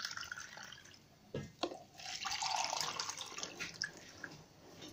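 Water poured from a glass into a bowl of gram flour and yogurt paste for kadhi, splashing in over two stretches, with a couple of short knocks about a second and a half in.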